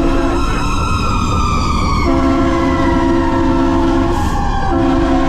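Fire engine air horns sounding in long blasts: one ends just after the start, one runs from about two seconds in to nearly five, and another starts just before the end. Under them a siren tone falls slowly in pitch, over the steady low rumble of the truck on the road.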